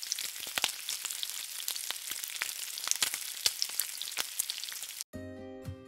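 Hot oil sizzling, crackling with many sharp pops as food fries. It cuts off suddenly about five seconds in and music begins.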